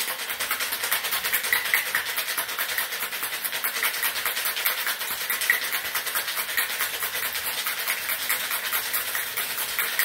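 Ice cubes rattling inside a metal cocktail shaker tin as it is shaken hard by hand in a fast, even rhythm, chilling and diluting the drink.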